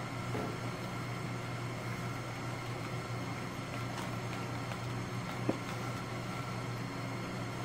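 Steady low hum of room noise, with a few faint light taps of plastic cups and containers being handled on the table, the clearest about five and a half seconds in.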